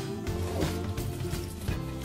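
Background music: sustained chords over a steady beat.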